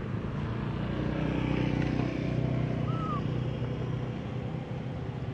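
Motor vehicle engine running close by, a low steady hum that swells in the middle and eases toward the end, with one short high chirp about three seconds in.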